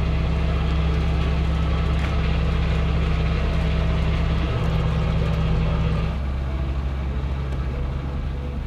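A sailboat's inboard diesel engine running steadily while motoring out of harbour, a low even hum. Its note shifts slightly about four and a half seconds in, and it gets a little quieter after about six seconds.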